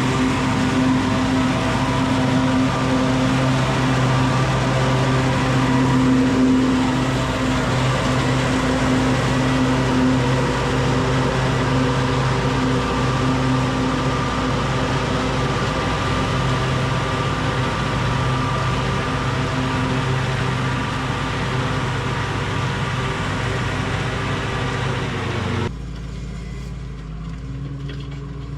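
A tractor engine runs steadily under load with a constant hum. Near the end the sound suddenly drops to a quieter, duller engine sound.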